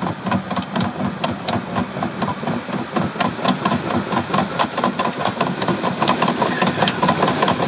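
A loader's engine running steadily while its bucket pushes crushed rock out over geogrid, the stones clattering in many small rattles.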